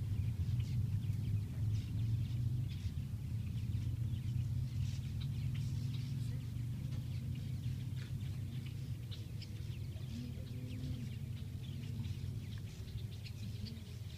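A large flock of purple martins chirping as it gathers to roost: a dense scatter of short, high calls, over a steady low rumble.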